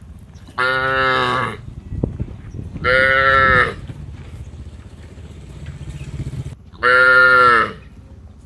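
A cow mooing three times, each call short and dropping slightly in pitch as it ends, over a low rumbling background.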